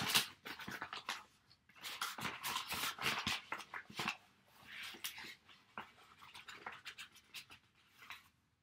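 Rustling and scraping as a plastic measuring cup is scooped through flour, with small clicks and knocks throughout.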